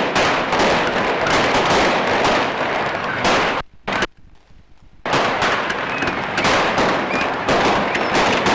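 Fireworks going off: a dense run of crackling and repeated bangs. About three and a half seconds in, the sound drops away for roughly a second and a half, then resumes as before.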